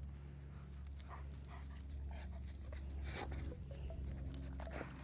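A German Shepherd dog heard close by: short faint sounds every half second or so and a louder noisy burst about three seconds in, over a steady low hum.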